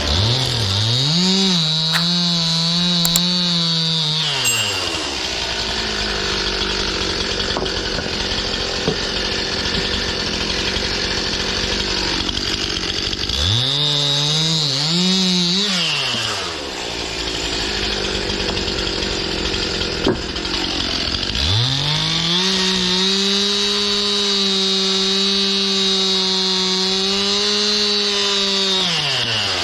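Stihl two-stroke chainsaw bucking sugar maple firewood. It makes three cuts at full throttle: the first two last a few seconds each, and the last about seven seconds near the end. The engine drops back off the high note between cuts.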